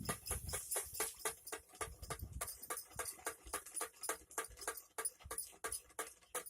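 Bird-scaring device clattering in a rapid, irregular run of sharp clicks, about six to eight a second.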